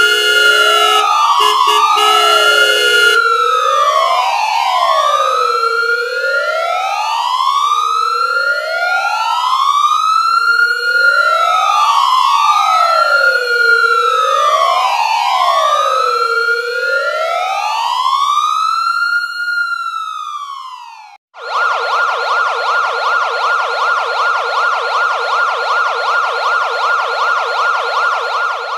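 Police car siren sounding a slow wail: two overlapping tones rise and fall about every three seconds, with a steady tone beside them for the first few seconds. About 21 seconds in it breaks off and switches abruptly to a fast yelp, warbling rapidly up and down.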